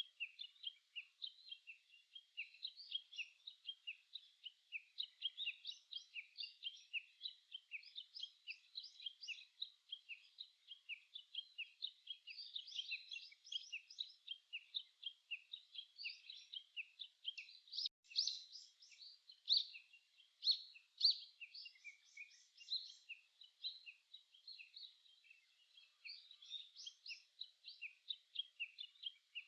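A chorus of songbirds chirping and singing, many short high notes overlapping continuously, with a few louder calls around the middle.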